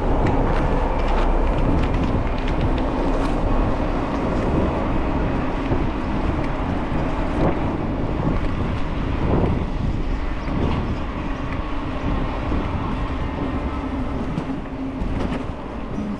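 A vehicle in motion: a steady low rumble with a constant hum and occasional light clicks.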